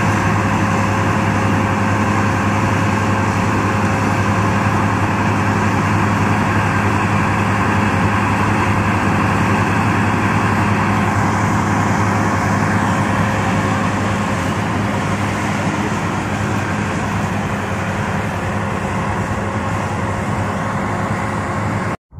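Rice combine harvester running, a loud, steady engine drone with a constant hum.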